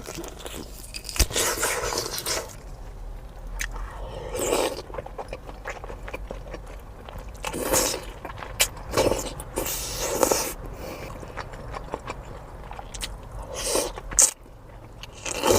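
Close-miked eating: irregular biting, crunching and chewing sounds with sharp clicks, in uneven bursts.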